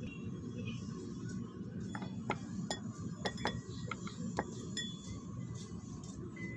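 Light metallic clicks and clinks, about a dozen scattered over a few seconds, from hand-handling of a scooter's CVT drive belt and pulley, over a low steady background rumble.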